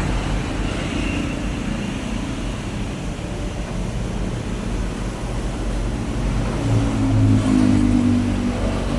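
Daihatsu Gran Max pickup's engine running through its modified exhaust: a steady low engine note that swells louder for about a second around seven seconds in.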